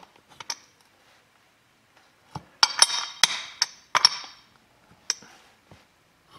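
A steel socket being pushed and tapped down on a bearing spacer inside a Minarelli water pump housing: a string of sharp metallic clinks with brief ringing, coming in a quick cluster about halfway through.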